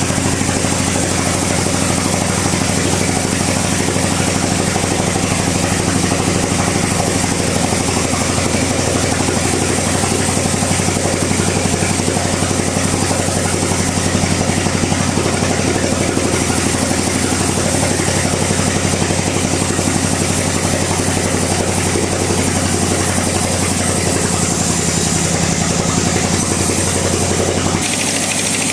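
A bandsaw mill running steadily through a log: a constant machine hum under the dense noise of the blade cutting wood. Near the end the cutting noise eases and the hum changes.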